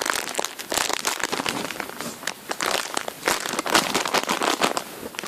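Crinkling and crackling of a plastic wrapper as a foam squishy toy is handled, a dense run of small irregular crackles.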